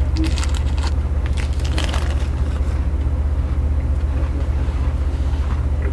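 Steady low drone of a running engine, pulsing evenly, with a scatter of crackling clicks in the first two seconds.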